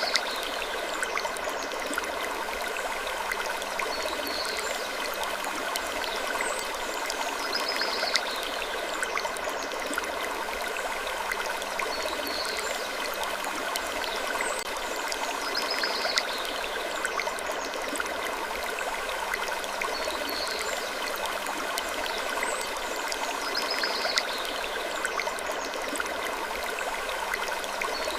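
Wood creaking slowly in an even loop, a creak about every four seconds, over a steady hiss.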